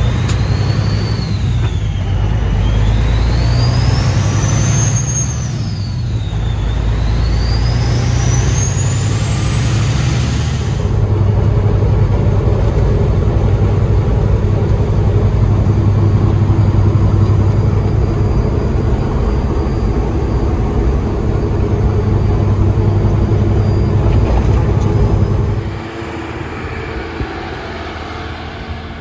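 Diesel engine of a Kenworth W900 semi truck, heard from inside the cab, pulling hard through the gears with a high turbo whistle that climbs, dips and climbs again over the first ten seconds, then droning steadily at highway cruising speed. About three seconds before the end it cuts abruptly to a quieter tractor engine.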